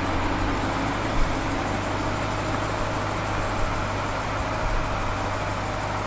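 2018 BMW M550i's twin-turbo V8 running steadily at idle as the car creeps forward under remote-controlled parking from the Display Key.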